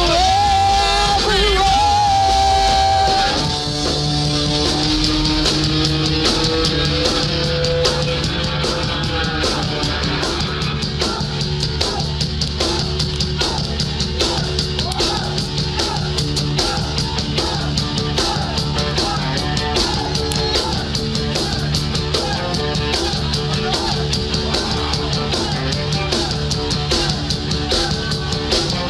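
Rock band playing: a held sung note ends about three seconds in, then an instrumental passage of a repeating guitar riff over bass and drum kit with steady cymbal hits.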